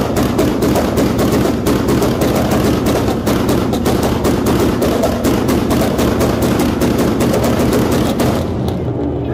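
Drag car engine held on a two-step launch limiter while staged for launch: a rapid, even string of exhaust bangs, about eight a second, over the steady engine note. The bangs stop about eight and a half seconds in.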